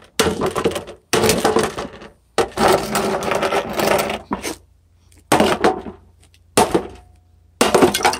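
Claw hammer beating the stainless-steel body of a slow cooker: flurries of rapid metallic blows in about six bursts with short pauses between them.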